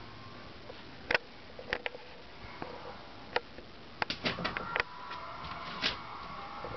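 English Springer Spaniel puppy sniffing at close range, with a string of sharp clicks and taps, several coming in quick succession about four seconds in.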